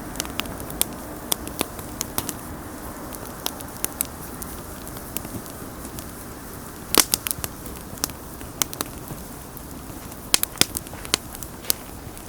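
Wood fire burning with a steady low rumble and irregular sharp pops and crackles, a loud burst of pops about halfway through and another cluster near the end.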